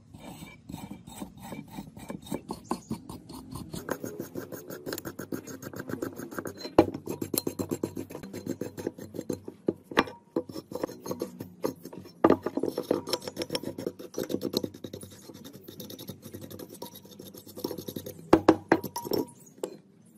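Rapid, repeated scraping strokes of a hand tool working a rusty engine part, several strokes a second, with a few sharper knocks scattered through.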